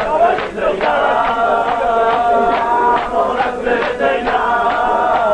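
Men chanting a devotional religious song together, with a steady beat about two to three times a second.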